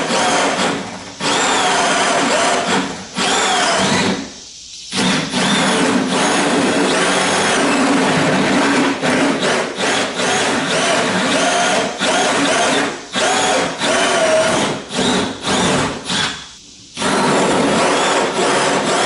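Electric drill boring holes into the wooden top of a chest of drawers, its motor whine rising and falling in speed. It stops for about a second twice, around four seconds in and near the end, with many short let-offs in between.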